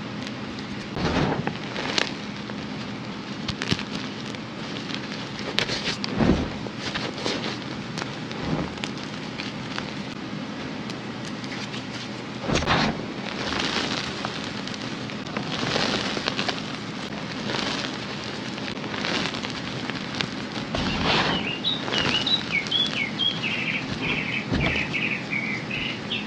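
Hands crushing and rubbing red-dyed gym chalk powder and crumbled reformed chalk blocks: dry, powdery crunching in repeated bursts over a steady crackling hiss. Near the end comes a run of high chirps.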